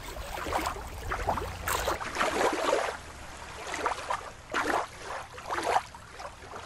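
Water lapping and sloshing in uneven surges.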